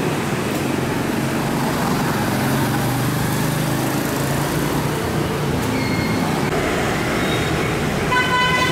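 Steady street traffic noise from passing road vehicles, with a low engine hum. A brief steady tone sounds near the end.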